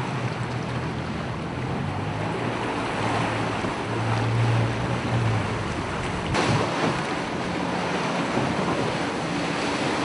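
Wind buffeting the microphone over the rush of the sea, with a boat engine humming low and steady for the first five seconds or so.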